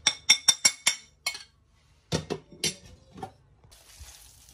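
Kitchenware clinking: a quick run of about six sharp, ringing clinks in the first second, then a few duller knocks. Near the end a spatula stirs chopped chicken mince in a steel bowl with a soft hissing scrape.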